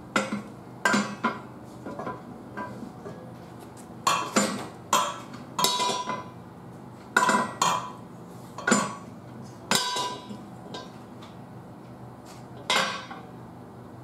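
Steel tire-changer bar clanking against the wheel rim and the changer's post as it is levered around to push a car tire's bead onto the rim: about a dozen irregular metallic knocks, each with a short ring.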